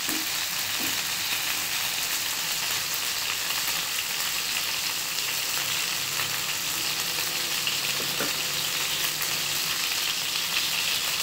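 Masala-coated chicken 65 pieces shallow-frying in hot oil in a nonstick pan: a steady, dense sizzle with fine crackles of spitting oil.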